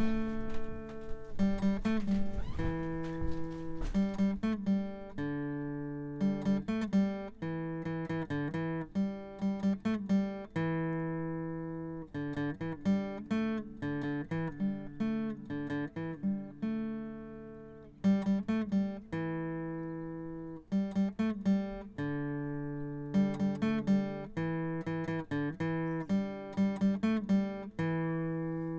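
Background acoustic guitar music: plucked notes that ring and fade, in a phrase that repeats over and over.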